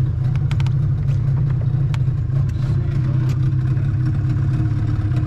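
Boat engine running steadily with a constant low drone, with a few faint sharp clicks over it.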